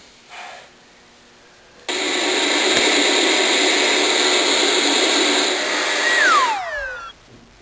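A loud electric motor switches on suddenly about two seconds in and runs steadily for about four seconds. Near the end its whine falls in pitch as it winds down and stops.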